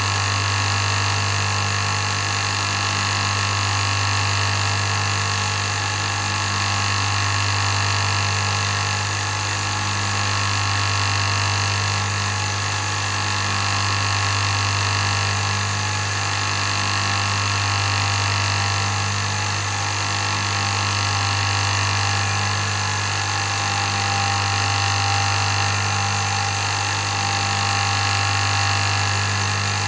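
Bench buffing wheel machine running steadily, its electric motor giving a low hum with higher steady tones above it, swelling slightly in level every few seconds.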